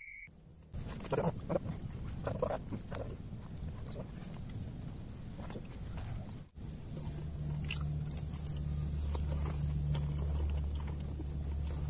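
Insects trilling in one steady, high-pitched tone that breaks off briefly about six and a half seconds in, with a low hum joining in the second half.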